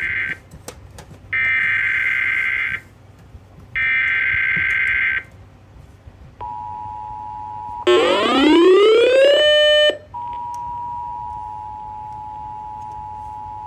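Emergency Alert System tones: the end of one screeching SAME digital-header burst, then two more, each about one and a half seconds long. Then comes the steady two-tone EAS attention signal, broken for about two seconds by a rising, buzzy sweep before the attention signal resumes.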